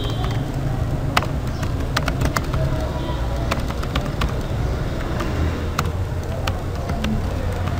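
Typing on a computer keyboard: irregular key clicks over a steady low rumble.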